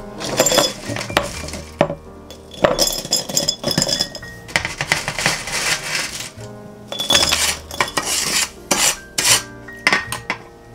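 Dry, sugar-coated candied ginger slices dropped by the handful into a glass jar, clinking and rattling against the glass in several bursts.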